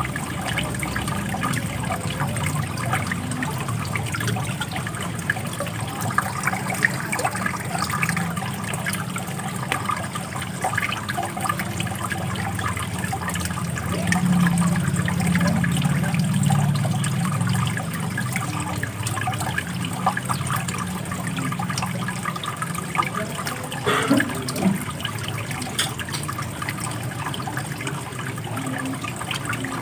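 Running water flowing and splashing steadily, a little louder for a few seconds around the middle.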